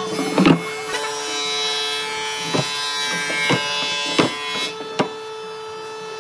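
Solid-wood drawers being slid in and out on wooden runners, with a scraping slide and a series of sharp wooden knocks as they are pushed shut. The loudest knock comes about half a second in. A steady droning tone runs underneath.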